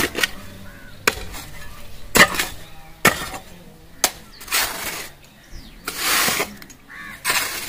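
A long-handled hoe chopping into sandy, stony soil and scraping out the loose earth while a pit is dug: about seven strokes, roughly one a second, one of them a longer scrape.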